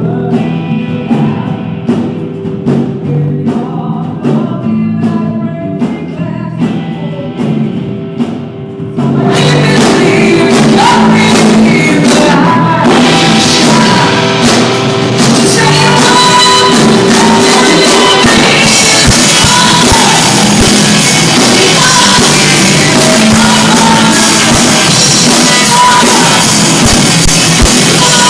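Live pop-rock band playing with a singer, distorted by a phone's overloaded microphone. It opens sparse and quieter, then the full band with drums comes in loud about nine seconds in.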